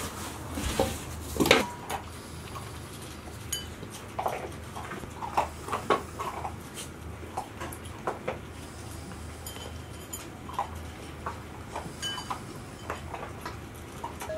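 Golden retriever puppies eating kibble from metal and ceramic bowls on a hard floor: irregular clinks and knocks of the bowls, some with a brief metallic ring. A few louder knocks come in the first two seconds.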